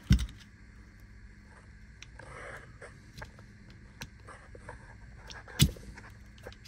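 A small metal pry tool working at the seam of a Hyper Tough 12 V 2 Ah battery pack's plastic housing, with light scraping and ticking. Two sharp plastic clicks stand out, one right at the start and one about five and a half seconds in.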